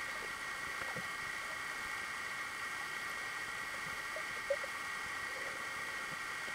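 Steady underwater hiss picked up by a submerged camera, with a faint steady high hum over it and a soft knock about four and a half seconds in.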